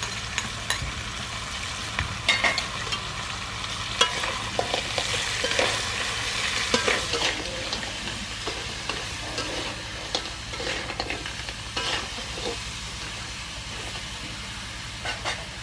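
Mud crab pieces sizzling in a steel wok while a metal ladle stirs and tosses them, with irregular clinks and scrapes of ladle on pan. The sizzle is strongest in the middle and eases toward the end.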